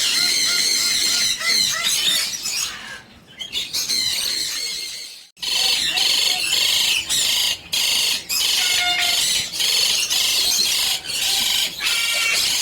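A group of lovebirds chattering and screeching with rapid, shrill, overlapping calls. The noise breaks off briefly about five seconds in, then resumes just as loud.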